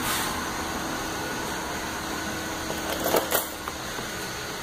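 Steady workshop room noise with a faint constant hum, broken by a few short knocks about three seconds in.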